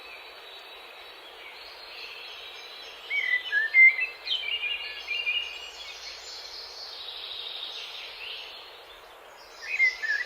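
Nature ambience: birds chirping and whistling over a steady background hiss. The calls come in a busy cluster from about three to six seconds in and again near the end.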